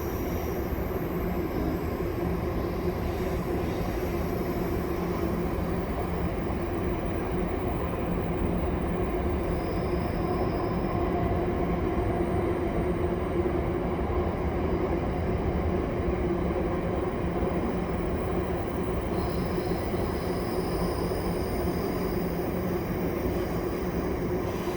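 A train rolling past on the track, its wagons making a steady rumble, with a faint high wheel squeal about ten seconds in and again near the end.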